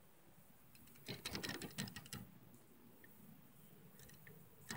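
Fishing rod and reel handled, clicking in a quick rattling run for about a second, with a few fainter clicks near the end.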